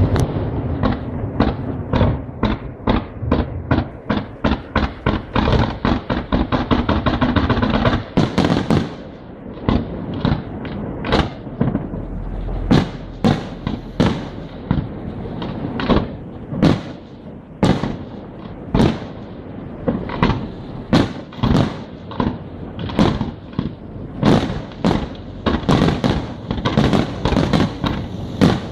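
Aerial fireworks display: a fast, even string of bangs, about four a second, that breaks off about eight seconds in, then separate sharp reports, roughly one a second, some with a lingering echo.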